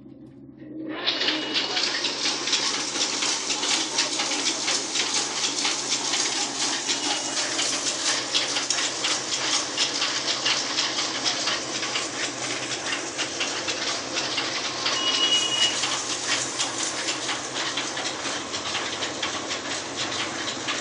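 Electric grinding mill (chakki) running steadily with a dense, rattling hiss as material is fed through its hopper; the noise starts about a second in.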